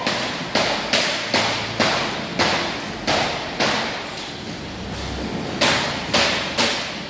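Sharp knocks about two a second, each echoing briefly in a large shed, pausing for about a second and a half past the middle before starting again: broccolini bunches being knocked down on a packing table.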